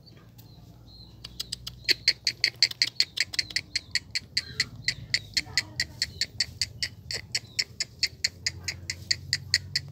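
A small animal calling in an even, rapid series of short high chirps, about five a second, starting about a second in.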